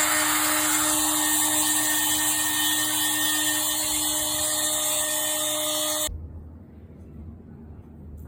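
Small power router running at high speed, cutting a hinge mortise into a wooden door through a Ryobi hinge template; a steady high whine that cuts off suddenly about six seconds in.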